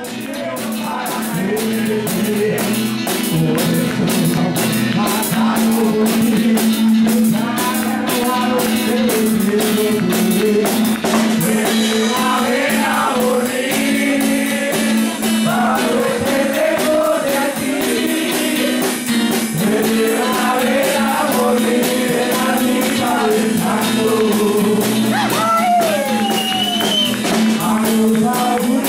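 Live acoustic rockabilly song: acoustic guitar strumming and a man singing, with drums and cymbals keeping a steady beat.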